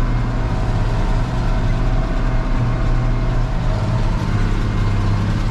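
Tractor engine running with a steady low drone while working a round baler.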